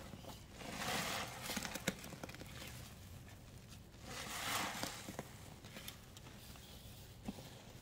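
Hands squeezing a wet cleaning-powder paste. There are two squeezes, one about a second in and one about four seconds in, with small crackles between them.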